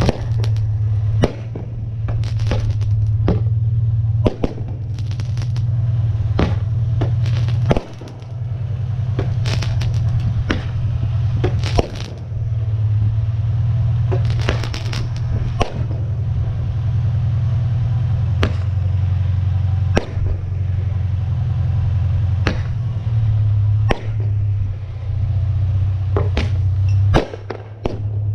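Fireworks fired from a homemade launcher: sharp pops and bangs at irregular intervals, about one every second or so, over a steady low hum.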